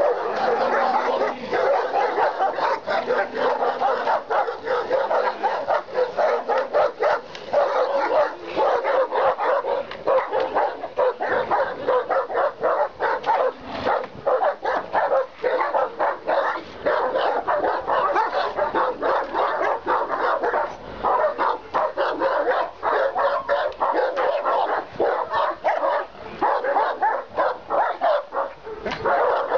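Caucasian Shepherd Dogs barking in a rapid, unbroken run, several barks a second.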